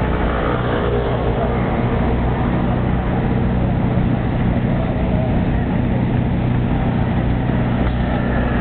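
Steady low machine hum that holds one constant pitch, with faint voices in the background near the start.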